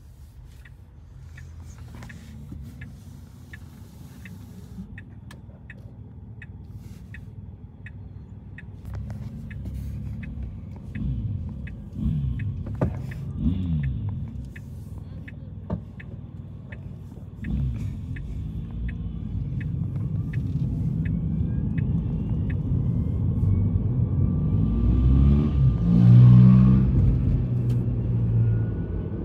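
A car driving, with steady engine and road rumble. A turn signal ticks evenly about one and a half times a second until about three quarters of the way through. Near the end the rumble swells to its loudest and then eases off.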